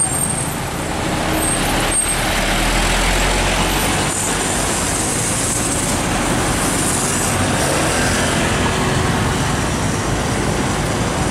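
Loaded Isuzu Giga FVM 240 PS diesel truck passing close by and pulling away round a bend, its engine rumbling loudest early on, mixed with the noise of passing cars and motorcycles.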